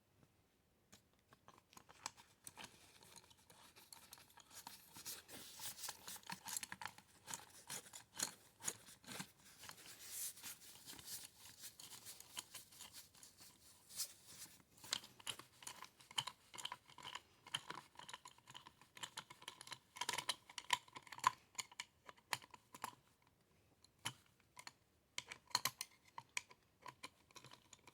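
Irregular light clicks and scrapes of small metal parts and a hand tool being worked on an AR-15 lower receiver, as the pistol grip is refitted over the safety selector detent and its screw is driven home.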